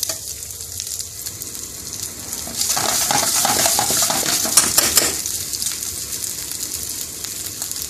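Chopped onion, peas and egg sizzling steadily in hot oil in a frying pan. For a couple of seconds near the middle, a metal spoon stirs them, scraping and clicking against the pan.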